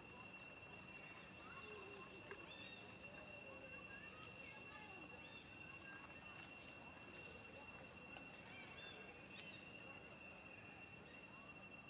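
Faint outdoor ambience: a steady, high-pitched insect drone, with faint scattered chirps and calls.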